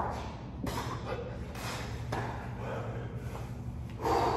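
A man breathing hard after burpees, several heavy breaths, the strongest near the end, with a couple of faint knocks, over a steady low hum.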